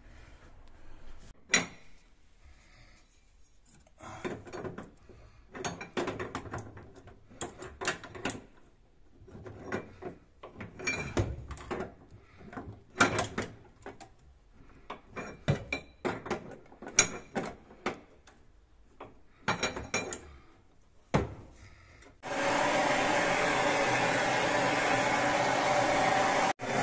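Scattered clicks, knocks and scraping of hand tools on brass fittings as shut-off valves are fitted to the boiler's pipe connections. About 22 seconds in, a handheld gas blowtorch starts and hisses steadily, briefly cutting out near the end.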